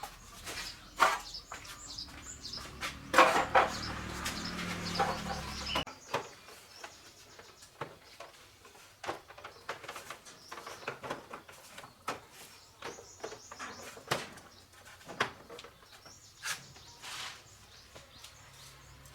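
Irregular clicks and knocks, as of tools and metal parts being handled, with a louder stretch of noise and low hum from about three to six seconds in. Faint high chirps sound now and then.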